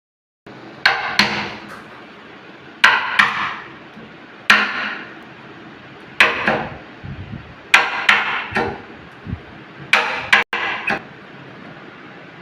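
Hammer blows in fitting a door lock, struck in groups of one to three about every one and a half to two seconds, each with a short ringing tail.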